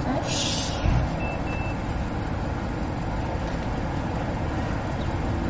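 A car running, heard from inside the cabin as a steady low rumble. There is a short hiss just after the start and two short high electronic beeps about a second and a half in.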